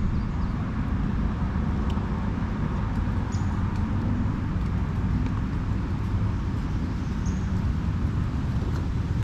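Steady low rumble of road traffic crossing the bridge overhead, with no separate passes standing out.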